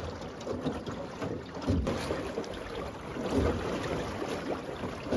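Wind buffeting the microphone, with heavy low gusts that come back every second and a half to two seconds.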